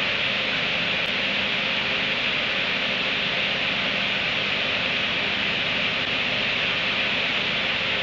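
Steady, even hiss with no distinct sounds standing out: no hiccups or other events can be picked out.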